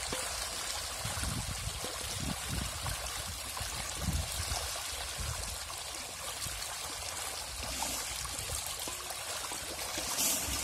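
Steady churning and splashing of water as a dense crowd of fish thrash at the pond's surface, feeding.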